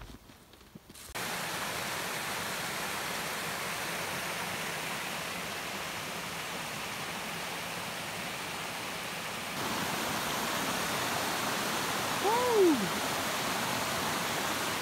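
Creek water rushing steadily over rocks, starting abruptly after a quiet first second and getting louder about ten seconds in as fast rapids over rock take over. A short voice-like sound rising and then sliding down in pitch stands out near the end.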